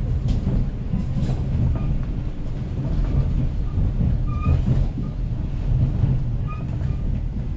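Siemens Desiro electric multiple unit running along the track: a steady low rumble of wheels on rails and running gear.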